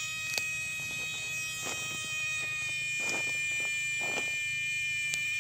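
Night insects, crickets among them, chirping in a steady high-pitched chorus over a low hum, with a few soft rustles or knocks.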